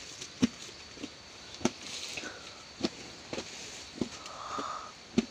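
A feeding elephant working grass with its trunk: five sharp knocks or clinks, about one every second and a quarter, with faint rustling between.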